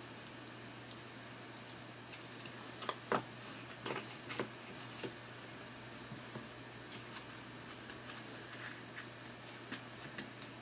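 Cardboard terrain pieces being handled and slotted together by hand: scattered light clicks and scrapes, busiest about three to five seconds in.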